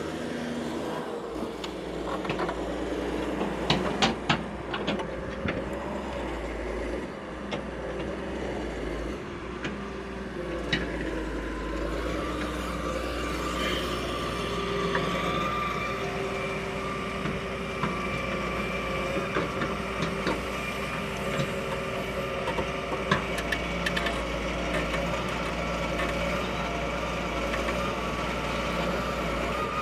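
A vehicle engine running steadily, with a few sharp clicks and knocks a few seconds in and a steady higher whine joining after about twelve seconds.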